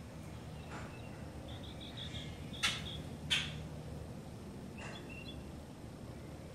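Lovebirds chirping: a quick run of about five short high notes, then two sharp, loud chirps about two-thirds of a second apart, with a few softer calls before and after.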